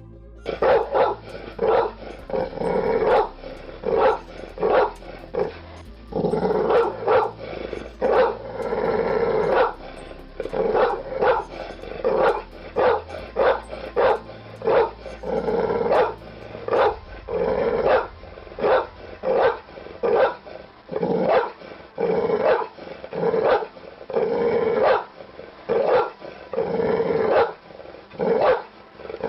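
Dog barking over and over, mostly short barks about one or two a second, with a few longer, drawn-out barks mixed in.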